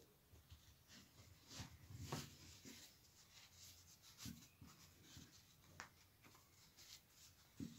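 Faint, scattered rustling and rubbing of hands handling a crocheted yarn doll as its crocheted shorts are pulled on and the tail is drawn through them.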